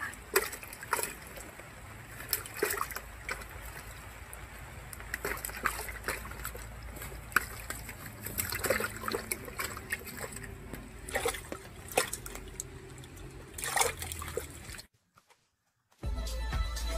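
Water splashing and trickling in a bucket of freshly caught small fish as hands work in it, in scattered irregular splashes. The splashing stops about 15 seconds in; after a short silence, electronic music starts near the end.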